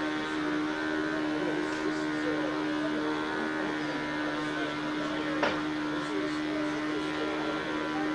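A machine running with a steady, even, pitched hum, with one sharp click about five seconds in.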